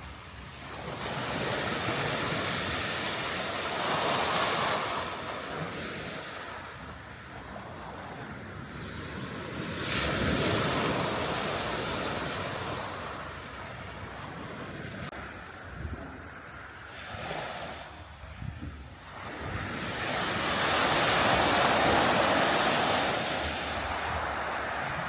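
Sea waves breaking and washing up a sandy shore, swelling and easing in repeated surges, loudest near the end, with wind buffeting the microphone.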